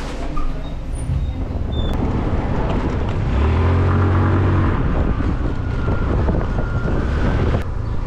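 Motor scooter's engine running as it rides through city traffic, its low engine note loudest about halfway through.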